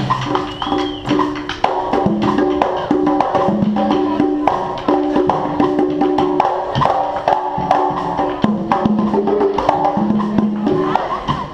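Live street band playing: pitched horn-like notes in short held phrases over a busy, steady beat of drums and hand percussion.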